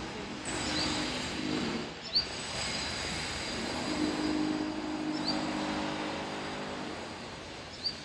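A vehicle passing: a steady low hum under a rushing noise that builds, holds and fades away near the end. Short high rising chirps sound every second or two.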